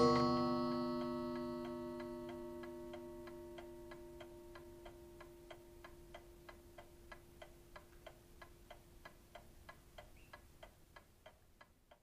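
1885 E. Ingraham mantel clock's cathedral gong struck once, the last stroke of twelve, ringing on and slowly dying away over many seconds. Under the fading gong the clock's movement ticks steadily, and the ticking is left on its own near the end.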